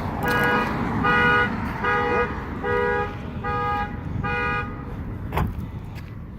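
A car horn sounding six even honks, each about half a second long, in a steady rhythm like a car alarm, followed by a single knock.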